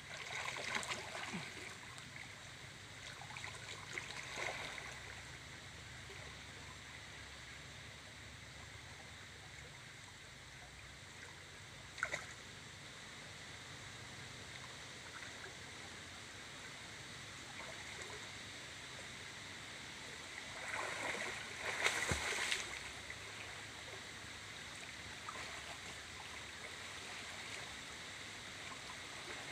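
Water sloshing and splashing as a person wades chest-deep through a muddy river, over the steady flow of the stream. The splashing comes in bursts near the start and again, loudest, about two-thirds through, with one short sharp click near the middle.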